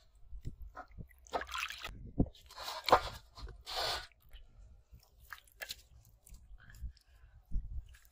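Rope-wrapped bamboo tube fish traps being handled over a metal basin and on wet mud: irregular scrapes, knocks and wet squelches, loudest about three seconds in, with a few sharp clicks later.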